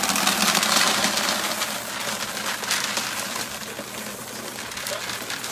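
Dry dog kibble pouring from a bag into a plastic storage bin: a steady rush of many small clatters that eases a little after about two seconds.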